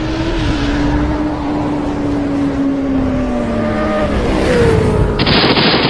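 Motorcycle engine sound effect: a steady engine note that slowly falls in pitch as the revs drop, a short rising rev about four and a half seconds in, then a loud rushing noise that cuts in near the end.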